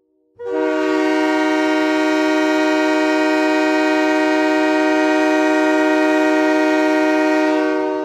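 Utah Grizzlies' 2017-18 ice hockey goal horn blowing one long, steady chord of several tones, starting about half a second in.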